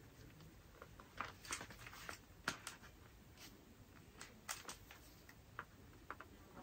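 Faint handling noise: a scattered run of light clicks and rustles from objects being picked up and moved, the sharpest about two and a half seconds in.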